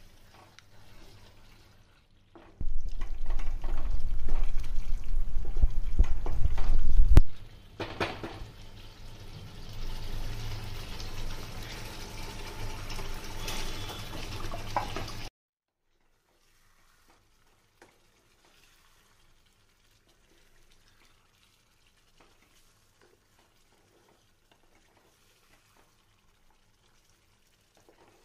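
Liquid sounds from a cooking pot, likely curry being cooked: a loud rumbling stretch, then a hissing, bubbling stretch that cuts off suddenly about halfway through, followed by near silence.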